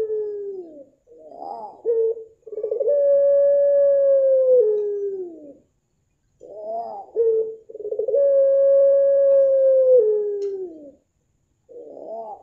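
Caged puter pelung, a Barbary dove bred for its long coo, cooing in repeated phrases. Each phrase is a few short rolling coos followed by one long drawn-out coo that holds steady, then steps down and falls away at the end. Two full phrases are heard, and a third begins near the end.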